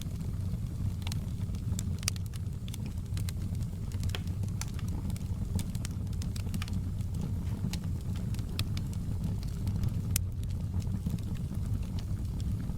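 Open log fire in a fireplace burning with a steady low rumble and irregular sharp crackles and pops from the logs, one louder pop about ten seconds in.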